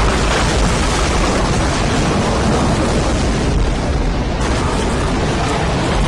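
Loud, steady rush of tornado wind with a deep rumble underneath, a dubbed storm sound effect.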